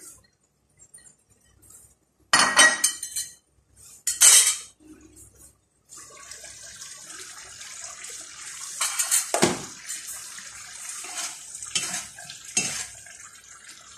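Two loud ringing clanks as the lid comes off a pan, then the broth of potatoes and chicken simmers with a steady bubbling hiss while a spoon scrapes and knocks against the pan several times.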